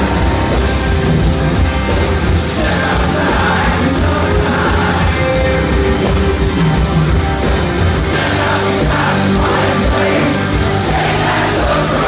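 Rock band playing live and loud, heard from the audience: a male lead vocal over electric guitars, keyboards and drums. The band's sound grows brighter and fuller about two-thirds of the way through.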